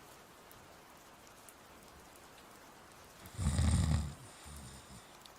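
A person snoring, voice-acted: one low snore about three seconds in, followed by a softer breath about a second later.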